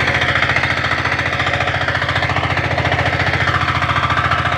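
9 hp power tiller's single-cylinder engine running steadily under load while tilling soil, a rapid, even pulsing beat.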